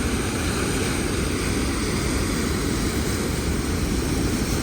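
Niagara Falls' water pouring down: a steady, unbroken rushing noise, heaviest in the low end.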